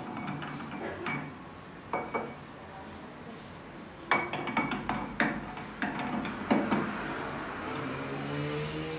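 Metal knocks and clinks from a splined gear shaft being handled in a lathe's four-jaw chuck and from the chuck key being worked: a few light knocks in the first two seconds, then a quick run of sharp, ringing metal clanks from about four to seven seconds in.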